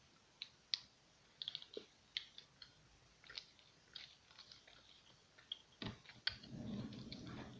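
Faint chewing of a chocolate candy, with small, sharp mouth clicks scattered throughout.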